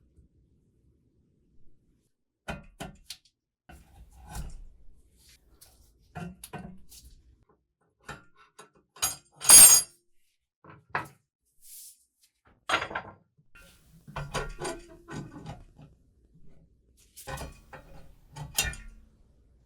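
Metal parts of an antique french fry cutter being handled: scattered clicks, knocks and clanks, with one louder, sharper clank about halfway through.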